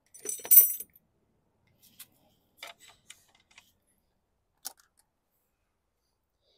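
Metal sockets and a socket wrench clinking together, with a short bright ringing about half a second in, then a few faint scattered clicks.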